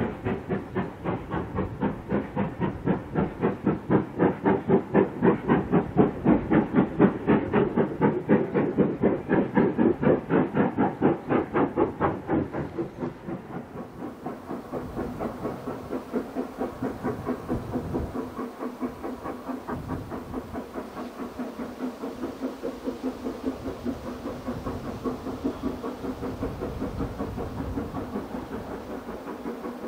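Steam locomotive working a train, its exhaust beating in a fast, even rhythm. About halfway through the sound becomes quieter, with a steady hum under the beats.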